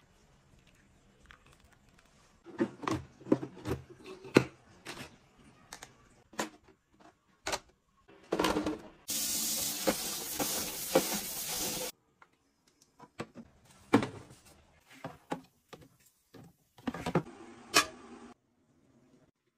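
Kitchen tap spraying water onto cherry tomatoes in a sink colander basket for about three seconds midway, cutting off suddenly. Scattered knocks and clicks of kitchen items being handled come before and after.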